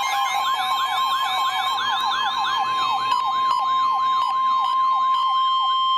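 NOAA Weather Radio warning alarm tone, a steady tone of about 1050 Hz, announcing a warning broadcast. Over it a fast up-and-down electronic siren warble fades out about five seconds in.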